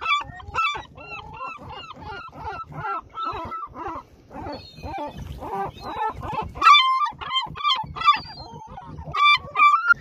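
Herring gull's laughing scream run through autotune: a fast string of yelping calls with the pitch snapped onto flat, held steps. The calls are loudest and most evenly pitched about two-thirds of the way through and again near the end.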